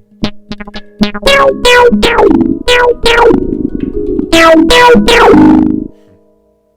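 Handpan notes played through an electronic effect. A few light taps come first, then a run of louder ringing notes, each with a bright upper sound that slides down in pitch after the strike. The playing stops about six seconds in.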